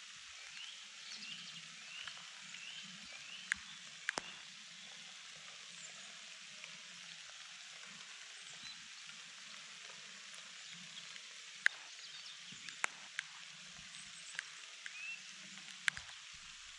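Steady light hiss of rain outdoors, with a bird chirping a short repeated phrase in the first few seconds and a handful of sharp knocks scattered through.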